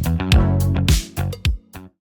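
Intro music with a regular drum beat, sustained bass notes and plucked guitar, cutting off near the end.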